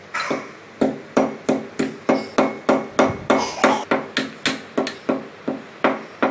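Dry ginger being crushed by hand, a steady run of sharp pounding knocks about three a second, some with a slight ring.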